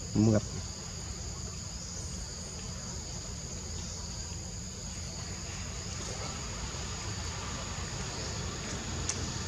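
Steady insect chorus in forest: a continuous high, two-toned buzz over a low rumble. A short voice-like sound comes right at the start.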